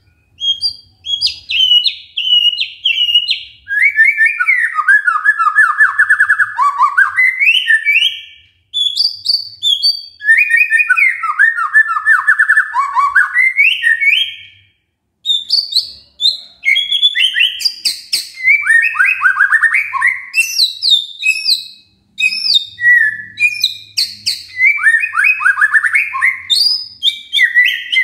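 White-rumped shama (murai batu) singing a loud, varied song of fast rattling trills and sweeping whistled notes, in long phrases broken by short pauses about a third of the way in, halfway, and three-quarters through.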